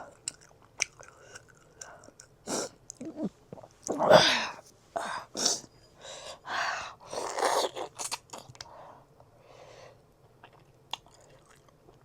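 Close-miked mouth sounds of someone chewing and biting food: irregular short bursts, loudest from about four to eight seconds in.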